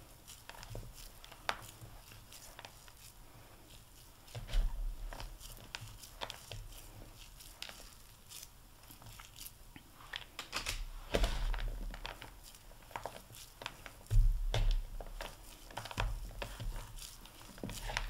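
Hands scooping, squeezing and rolling a crumbly chopped-pecan mixture into balls in a large bowl: soft crunching and crinkling with scattered light clicks. A few dull low bumps come through, the loudest about two-thirds of the way in.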